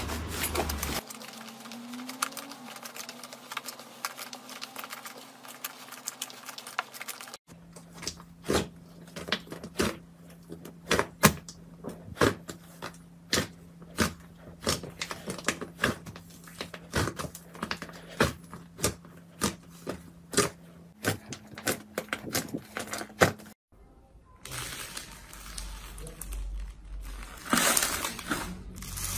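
Hands squishing, stretching and pressing soft fluffy and foamy slime in a bowl, giving a run of sharp wet clicks and crackling pops, several a second. The sound changes abruptly where one clip cuts to the next, growing denser and crunchier near the end as bubbly slime is squeezed.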